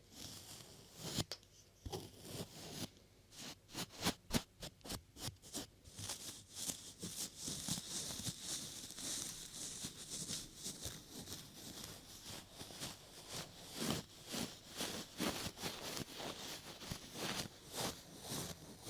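Close-miked rubbing and tapping on a 3Dio binaural microphone's ears, in quick irregular strokes at first, then a steadier high scratchy hiss of brushing in the middle, then irregular strokes again.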